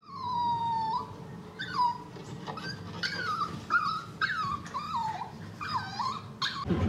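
Puppy howling and whining in high calls: one long, slightly falling call, then about seven shorter calls that dip and rise in pitch.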